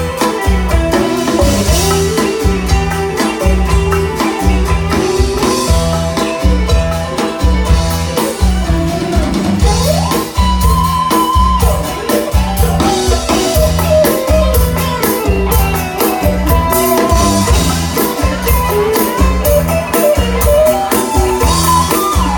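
Live band playing an instrumental break in a Thai song-for-life tune: a steady drum and bass beat under a lead melody, with a bent, held note about ten seconds in.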